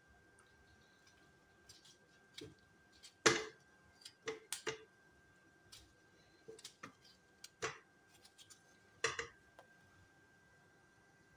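Irregular knocks and taps as tomatoes are sliced with a knife over a plastic blender jar and the pieces drop into it, the knife and tomato striking the jar. The loudest knock comes about three seconds in.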